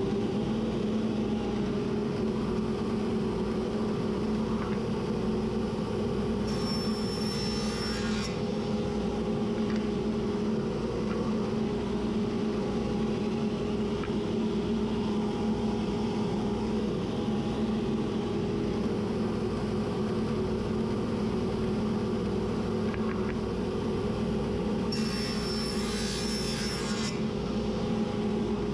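Table saw motor running steadily with an even hum. Two brief, noisier bursts come in about six seconds in and again near the end.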